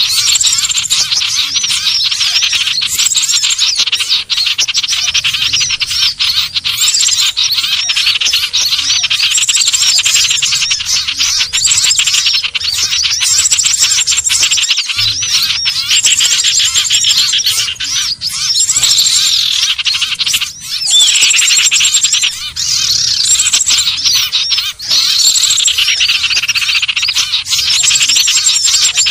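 Common ioras (sirtu/cipoh) calling non-stop. Dense, overlapping chattering and trills are mixed with repeated high, thin whistled notes.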